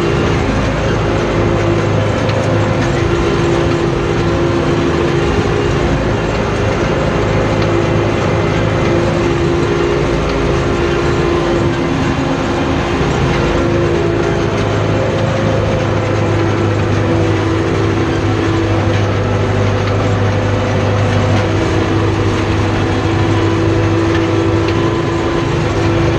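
Farm tractor engine running steadily, heard from inside the cab, with a constant low hum while the tractor pulls a hiller along the crop rows.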